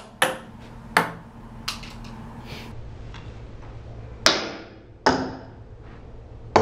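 Ping-pong ball bouncing on a hard surface: about six sharp clicks with short ringing, irregularly spaced.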